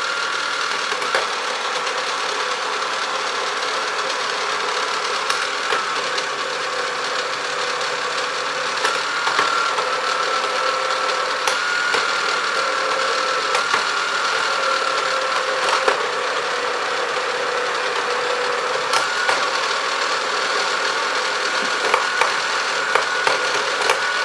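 Tandy/Radio Shack Armatron toy robot arm running: its electric motor and plastic gear train make a loud, noisy whir with a steady whine that shifts slightly in pitch a few times, and scattered sharp clicks throughout.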